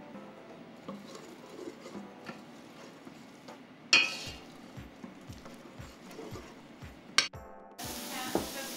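A wooden spoon stirring onions in a stainless steel stockpot, with a sharp clank against the pot about four seconds in and another knock near the end. In the last second, the steady sizzle of onions frying in oil starts abruptly.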